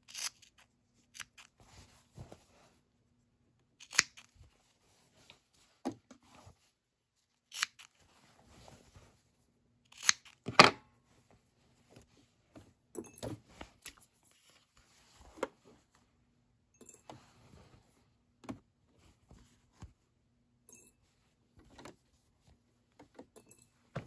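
Cotton fabric rustling as it is handled, with scattered short snips and clicks from small scissors trimming it; the loudest pair comes about ten seconds in.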